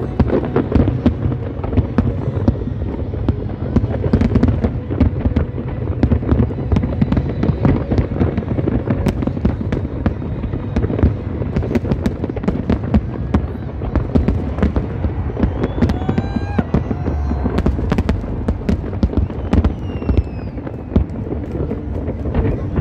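Large fireworks display: a continuous barrage of aerial shell bursts and crackling effects, many bangs overlapping into a heavy rumble.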